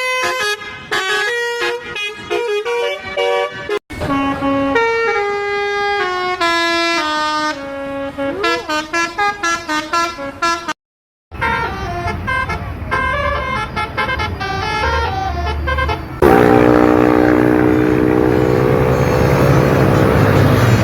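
Multi-tone Basuri 'telolet' bus horns playing short tunes, their notes stepping up and down in pitch, in several clips cut together. From about three-quarters of the way through, a louder horn chord is held steadily over a rushing noise.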